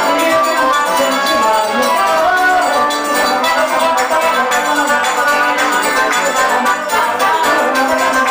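Live forró band playing a steady, dance-rhythm tune: accordion and guitar over a zabumba drum and hand percussion.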